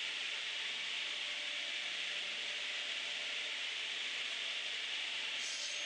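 Steady, even hiss with no distinct knocks or changes.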